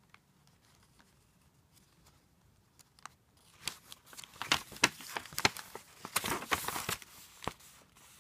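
Sheets of paper rustling and crackling as they are unfolded and turned over by hand, starting about three and a half seconds in, with sharp crackles among the rustle.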